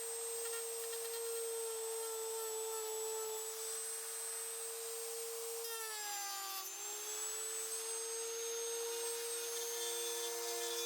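A small high-speed power tool, such as a rotary tool, running with a steady high whine; about six seconds in its pitch drops as it bites into material, then climbs back.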